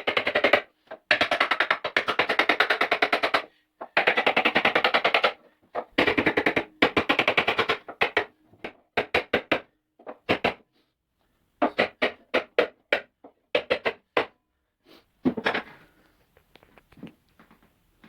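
Hammering chipboard shelves into tight grooves: fast runs of blows in quick succession, then shorter, spaced-out groups of strikes from about eight seconds in, dying away to faint taps near the end.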